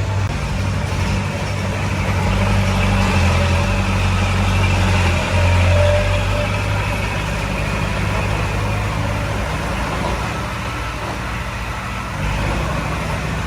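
Heavy machine's diesel engine running steadily under a working load, swelling a couple of seconds in and easing back near the end.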